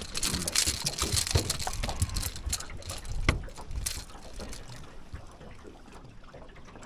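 A landed fish flapping on the floor of a boat: irregular wet slaps, knocks and thumps against the deck, busiest in the first four seconds, then dying down.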